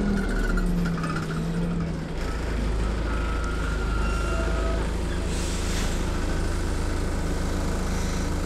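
Dennis Dart bus engine idling, heard from inside the saloon as a steady low rumble that shifts slightly about two seconds in, with a brief hiss about five seconds in.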